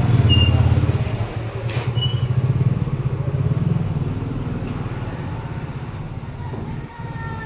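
A motor vehicle's engine running close by, a low steady drone that slowly fades away.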